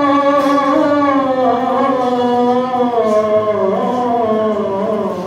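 A single voice holding one long, slowly wavering sung note, its pitch drifting gently downward, in the manner of a chant.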